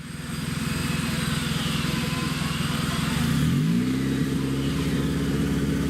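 Engine of an off-road 4x4 competition vehicle running steadily, then revving up about three and a half seconds in and holding the higher revs.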